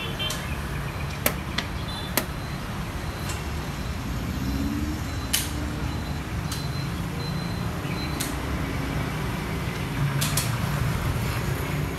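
Steady rumble of street traffic, with a few sharp clicks from the xiangqi game: a piece set down on the wooden board and the chess clock being pressed.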